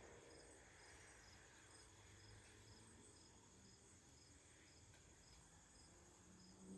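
Faint cricket chirping steadily, about two short high chirps a second, over a quiet background.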